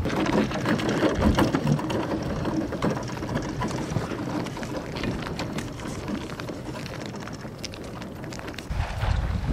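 Ice boat's steel runners scraping and crackling across lake ice as the boat slides past close by. The sound is loudest in the first few seconds and eases off as it moves away.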